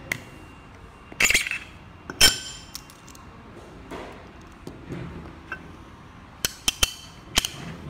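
Sharp metallic clicks and clinks from a Hexohm 3.0 aluminium box mod being handled as its magnet-held battery door is pulled off and snapped back on. Two loud clinks come in the first few seconds, and a quick run of three or four clicks near the end.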